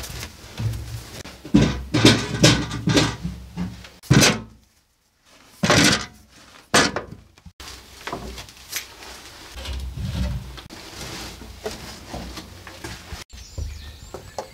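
Irregular knocks and clunks of potatoes and glass preserve jars being handled in a small wooden cellar storeroom, with a few louder clunks in the first seven seconds and quieter handling noise after.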